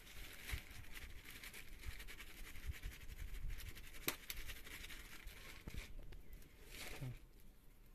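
Thin plastic bag rustling and crinkling as flour is shaken out of it onto sliced liver on a metal tray, then hands scratching and tossing the liver pieces through the flour. A sharp click about four seconds in.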